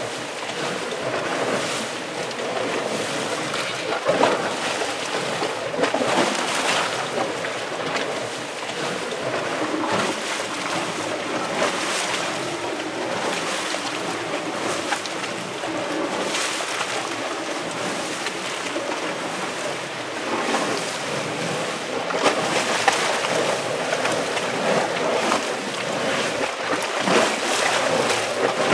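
Steaming volcanic hot spring, its water churning and bubbling and its steam rushing. The noise is steady and swells and eases unevenly.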